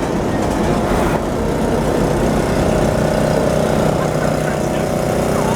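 Locomotive engine running steadily as the train passes, a continuous engine drone whose pitched hum becomes clearer about halfway through.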